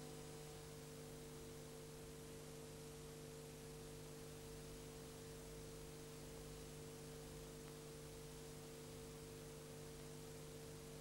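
Faint, steady mains hum with hiss, from an old off-air videotape recording with no programme sound.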